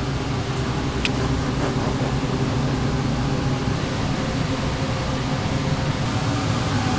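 Steady mechanical hum with a low drone under an even hiss, and a light click about a second in.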